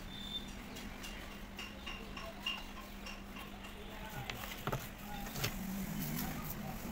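Irregular light clicks and taps from wires, tools and a plastic switch board being handled on a workbench, over a steady low hum.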